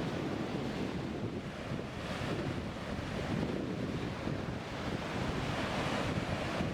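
Heavy surf breaking on the shore, a steady rushing that swells and eases, with strong wind buffeting the microphone.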